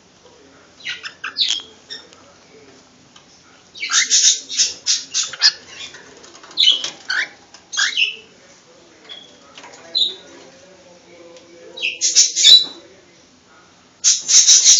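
Cockatiel chirping in short bursts of quick, high chirps and squawks, with brief quiet gaps between the bursts.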